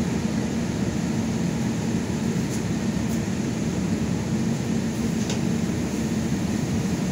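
Steady low rumble of a city bus's engine and running gear heard inside the passenger cabin, with a few faint clicks or rattles.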